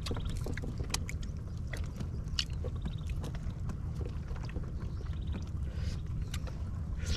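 Steady low rumble of wind and water around a raft drifting at sea, with scattered small clicks.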